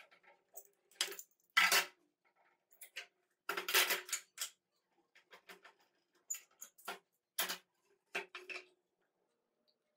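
Steel bar clamps being unscrewed, lifted off glued pine boards and set down on a wooden workbench: a string of metallic clanks and wooden knocks, the loudest about two seconds in, with a busy cluster around four seconds and more spaced knocks later on.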